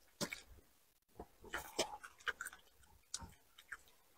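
Close-up mouth sounds of someone biting and chewing fried shrimp: faint, irregular clicks and crunches.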